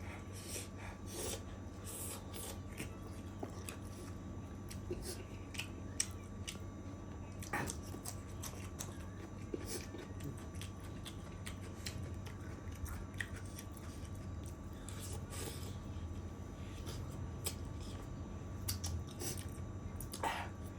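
A person eating chicken curry with rice: chewing with scattered wet clicks and smacks, some sharper than others. A steady low hum runs underneath.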